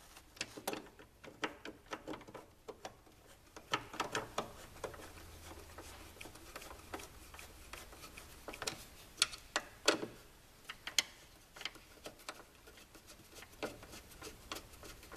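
Irregular light clicks and ticks of screws being started by hand with a screwdriver, the tool and screws tapping against a snowmobile running board's footwell stop. A few sharper clicks stand out near the middle.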